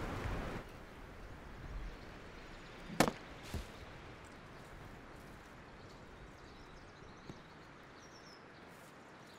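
A single sharp axe blow into a wooden tree stump about three seconds in, with a smaller knock half a second later, over faint outdoor background.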